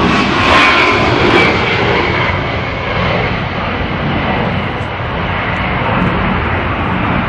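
Low-flying A-10 Warthog jets buzzing overhead: the loud rushing noise of their twin turbofan engines, with a whine that falls in pitch as they pass.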